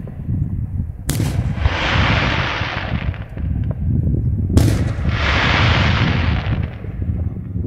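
Daytime aerial fireworks: two loud shell bursts, about a second in and again some three and a half seconds later. Each bang is followed by a hiss that fades over about two seconds, over a steady low rumble.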